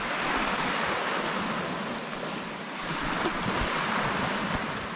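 Surf washing onto a sandy beach: a steady hiss of small waves that swells and eases.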